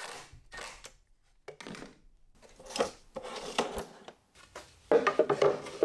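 Scattered light knocks, scrapes and rubbing from a wooden drawer box and metal side-mounted drawer slides being handled and fitted, louder near the end.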